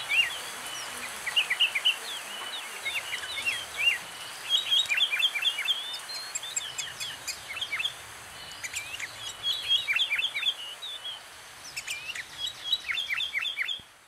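Sooty-headed bulbuls (kutilang) calling: bursts of quick, short chirping notes repeated every second or two, fading out at the very end.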